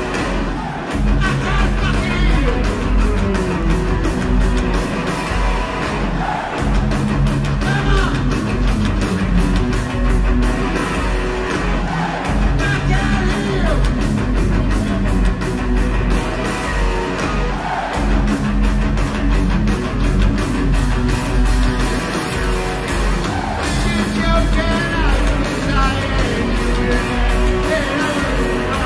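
Heavy metal band playing live and loud: distorted electric guitars, bass and fast, steady drums, with a male voice singing over them.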